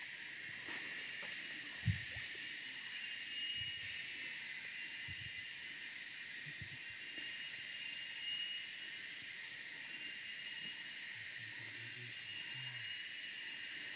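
Shallow forest stream flowing with a steady soft hiss, with a faint low thump about two seconds in.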